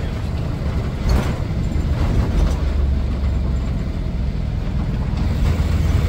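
Blue Bird Wanderlodge motorcoach driving along, heard from inside its cab: a steady low engine and road rumble.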